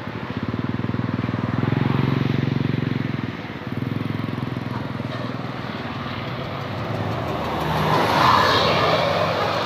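A large bus's diesel engine running as it passes, its steady note dipping briefly about three and a half seconds in, with a rush of louder road noise near the end.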